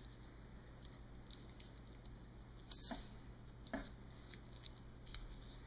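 Dull dollar-store scissors snipping through folded thin paper: a run of small snips and clicks, with one louder, sharper snip about three seconds in.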